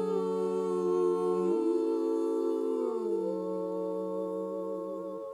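Women's barbershop quartet singing a cappella, holding a sustained four-part chord without words. The chord shifts twice, about a second and a half in and again about three seconds in, and is released right at the end.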